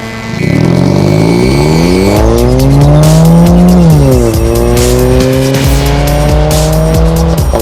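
Hyundai Veloster four-cylinder engine through a stainless steel cat-back performance exhaust, accelerating through the gears: the pitch climbs steadily, drops at a gear shift about four seconds in, climbs again, and drops at another shift near the end. Background music with a beat plays underneath.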